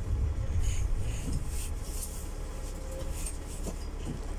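Low rumble of an LVT/S diesel railcar dying down over the first second or two as it rolls slowly to a stop at the station, with faint creaks and ticks from the cab.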